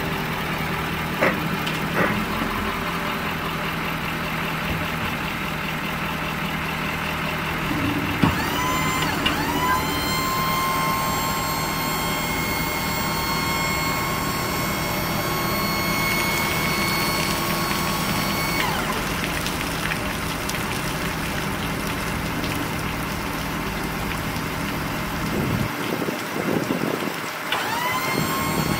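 Ford F-550 dump truck's hydraulic hoist pump whining as it raises the dump bed, over the truck's engine idling. The whine rises in pitch about eight seconds in, runs steadily for about ten seconds, drops away, then starts up again near the end.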